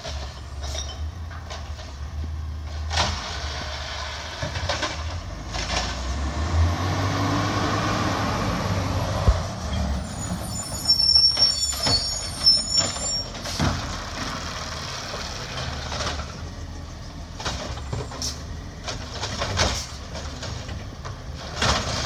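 Automated side-loader garbage truck running, its engine rising in pitch as it pulls up to the carts. About ten seconds in come clanks and high squeals as the hydraulic side arm reaches out and grips a recycling cart, then more knocks as the arm lifts it while the engine hums.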